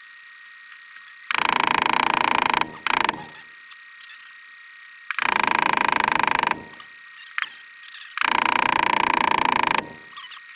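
Small hammer tapping a pin in to fix the gas tube in a rifle's gas block, metal on metal: three runs of quick light taps, each about a second and a half long, with a short extra burst and a single tap between them.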